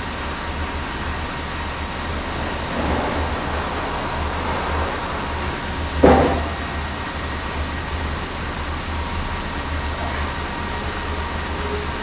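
Sawmill machinery running with a steady low hum and a constant noisy rush, swelling for a couple of seconds and broken by a single sharp knock about six seconds in.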